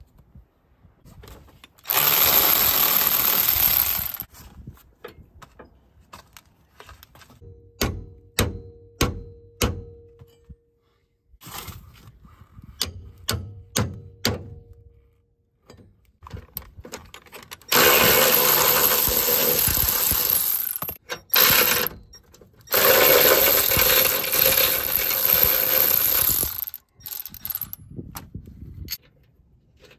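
Tools working on a truck's front steering and suspension linkage: three loud bursts of a power tool, each lasting two to four seconds, with runs of sharp metal clinks between them, several of which ring.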